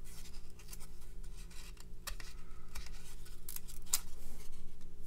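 Glossy 1994 Pinnacle football cards being slid and flicked past one another in the hands: an irregular scatter of small sharp clicks and rustles, over a steady low hum.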